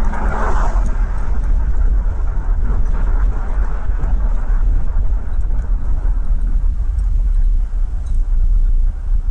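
Car driving on the road: a steady low rumble of engine and road noise, with a brief swell of louder noise in the first second.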